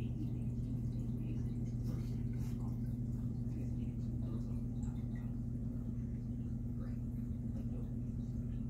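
Aquarium pump humming steadily, with faint water trickling and dripping.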